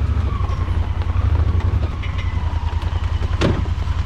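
Honda Pioneer 1000-5 side-by-side's engine running steadily with an even low pulse, plus a single sharp knock about three and a half seconds in.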